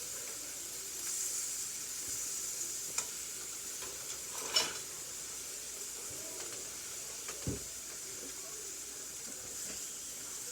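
Eggs frying in butter in a pan, a steady sizzle. A few light clicks and knocks sound over it, the sharpest about four and a half seconds in.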